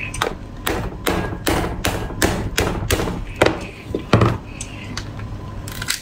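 A small hammer striking the shell of a cooked lobster claw to crack it open: a run of about ten sharp knocks, two or three a second, that stops about four seconds in.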